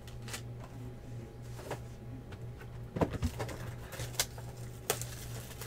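Scattered light clicks and knocks from plastic card cases and a cardboard card box being handled and set down on a table, over a low steady hum.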